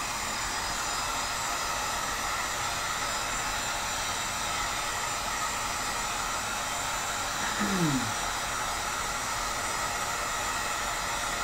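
Handheld electric heat gun running steadily, blowing hot air onto a PVC bow limb to soften the plastic for bending.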